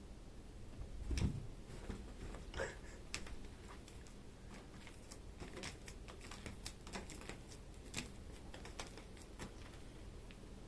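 Irregular light clicks and taps, with a louder dull thump about a second in.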